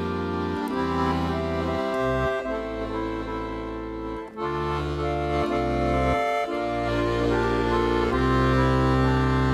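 Accordion playing a slow traditional Bavarian air, a sustained melody over held bass notes that change every second or two.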